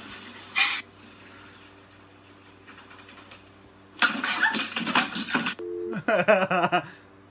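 A loud, noisy outburst about four seconds in, then a short two-note electronic beep, then a man laughing hard.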